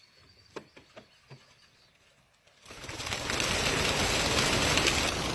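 A few faint clicks, then about two and a half seconds in, a flock of racing pigeons bursts from their crates and takes off together: a sudden, loud, dense rush of flapping wings that keeps going.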